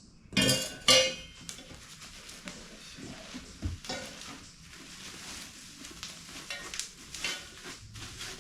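Metal exhaust-kit pieces clanking and clinking as they are handled and unpacked from a box: two loud metallic clanks with a brief ring about half a second and a second in, then lighter rattling, clinks and rustling.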